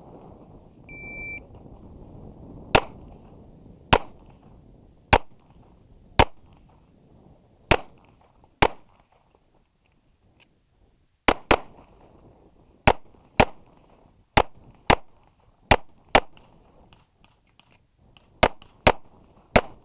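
A shot timer beeps once about a second in. A semi-automatic .45 ACP pistol then fires seventeen shots: six singles about a second apart, a short pause, then mostly quick pairs.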